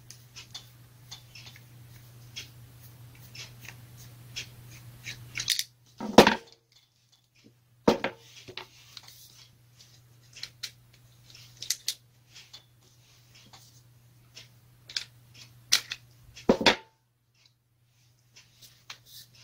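Clicks and light rattles of small plastic and metal parts while a screwdriver works the carbon brush holder and stator wires loose inside an angle grinder's motor housing, with three louder knocks about six, eight and sixteen seconds in. A low steady hum sits underneath and fades about five seconds in.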